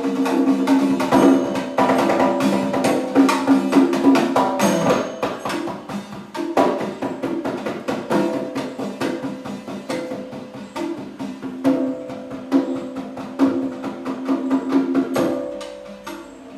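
Mizhavu, large copper pot drums, struck with the bare hands in a fast, dense rhythm of koodiyattam drumming, with a ringing pitched tone under the strokes. The playing eases after about five seconds, grows again later, and falls away near the end.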